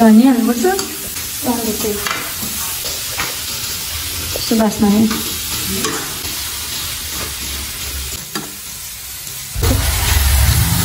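Steel ladle stirring and scraping chicken pieces around a steel kadhai, with the sizzle of the curry frying over a gas flame. The scraping comes in several short strokes, and a low rumble joins near the end.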